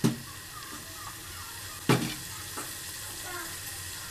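Onion and garlic paste with whole spices sizzling steadily as it fries in a pot, stirred with a wooden spatula. The spatula gives two sharp knocks, one at the very start and one about two seconds in.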